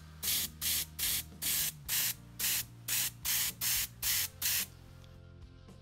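Airbrush spraying paint in short, evenly repeated bursts of hiss, about two and a half a second, as the trigger is pulsed. The needle is set to a fine mist. The bursts stop about three-quarters of the way through, leaving a faint low hum.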